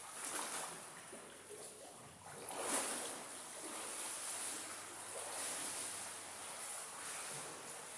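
A swimmer doing backstroke: irregular splashing from arm strokes and kicks, echoing in an indoor pool hall. The biggest splash comes about three seconds in.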